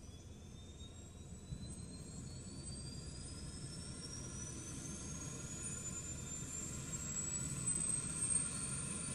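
Medical helicopter's turbine engines spooling up, a whine climbing steadily in pitch and growing louder over a low rumble, as the aircraft winds up for takeoff.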